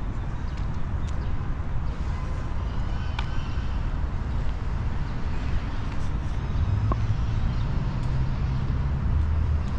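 City street traffic: a steady low rumble of passing vehicles, swelling louder about two-thirds of the way through, with a few faint short high chirps.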